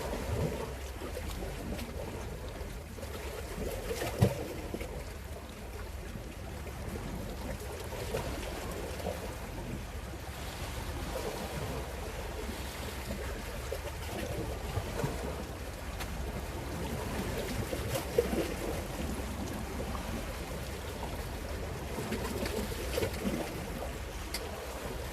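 Steady low rumble of wind and water around a boat at sea, with a couple of short sharp knocks, one about four seconds in and one near eighteen seconds.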